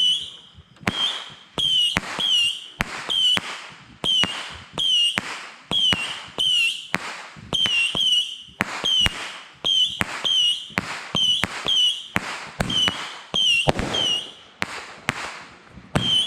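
A fireworks cake firing a long rapid string of shots, about two a second, each sharp crack paired with a brief whistle.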